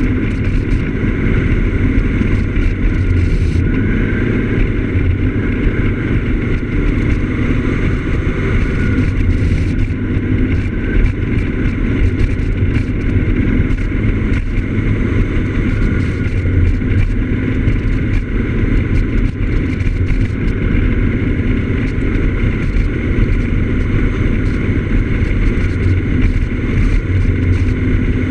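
Piaggio X9 Evo scooter running at a steady cruise, its engine and the rush of wind over the on-board camera's microphone blending into one continuous noise.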